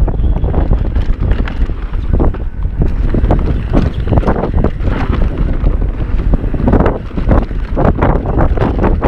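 Wind buffeting a GoPro's microphone over the rumble and clatter of a mountain bike riding a dirt trail, with frequent irregular knocks as the bike rattles over bumps.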